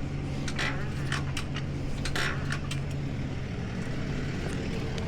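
Tow truck engine running steadily, with several sharp metal clinks and rattles in the first three seconds as rigging is handled.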